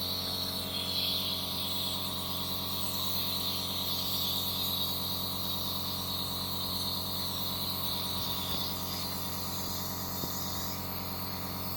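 Compressor nebulizer running steadily: an even electric hum with a hiss of air and mist over it, during a breathing treatment for a child's cough.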